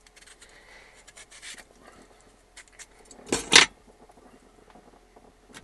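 Vegetable peeler paring a raw turnip into long, thin ribbons: soft scraping strokes of the blade, with one short, loud double rasp about three and a half seconds in.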